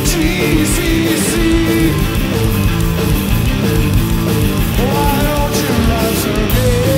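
Loud heavy rock played live by a two-piece band: distorted electric guitar riffing, with some bending notes, over a full drum kit with crashing cymbals.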